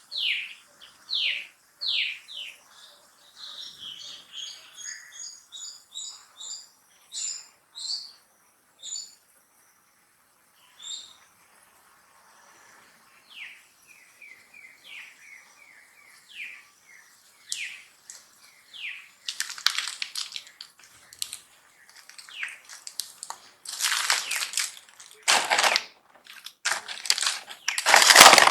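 A series of short, high-pitched calls, each falling in pitch, repeated about every 0.7 s, with a run of higher chirps in between. From about two-thirds of the way in, loud crackling, rustling noises take over.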